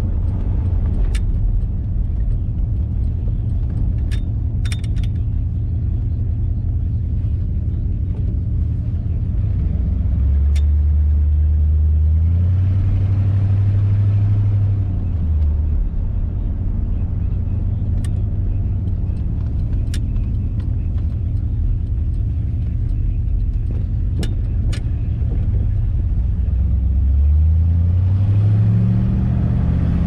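1957 Ford Thunderbird's Y-block V8 running under way, its low note climbing in pitch as the car speeds up about ten seconds in and again near the end. A few sharp ticks sound here and there.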